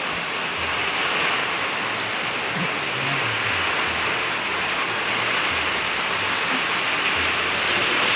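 Heavy rain pouring down steadily: a dense, even hiss that stays at the same level throughout.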